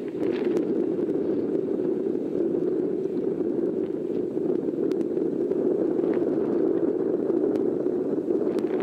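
Boeing 747-8 Freighter's four GEnx jet engines running at low taxi thrust: a steady rushing noise with no clear whine.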